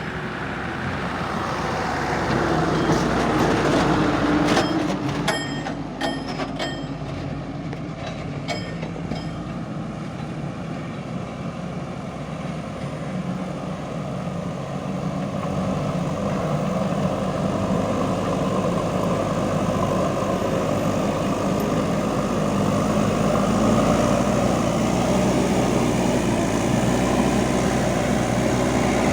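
JCB backhoe loader's diesel engine working steadily, growing louder over the first few seconds and again through the second half. A series of short sharp ringing sounds comes a few seconds in.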